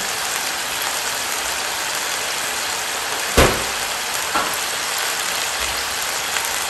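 Oil sizzling steadily as food deep-fries in a pot. A sharp knock comes about three and a half seconds in, and a softer one about a second later.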